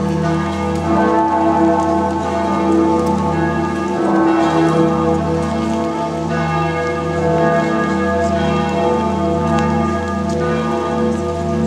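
Several large church bells of the Bern Minster ringing together in a full peal for the New Year. The strokes overlap into a steady, dense clangour over a deep hum, with new strikes coming in every few seconds and never dying away.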